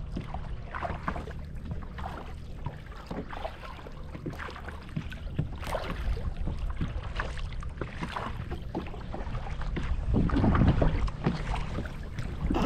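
Kayak paddles dipping and splashing in the water, with wind buffeting the microphone; the wind grows louder about ten seconds in.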